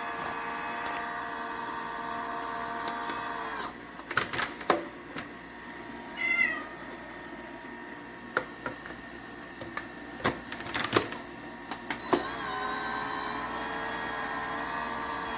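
Compressor ice cream maker's churning motor running with a steady hum, then stopping about four seconds in. A few sharp clicks and knocks and a short high wavering call follow, and the motor starts again about twelve seconds in, its pitch rising briefly as it comes up to speed.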